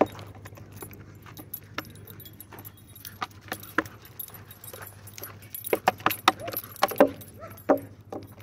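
A dog running and leaping after a toy on dirt: an irregular scatter of short, sharp clicks over a faint low hum, a little busier in the second half.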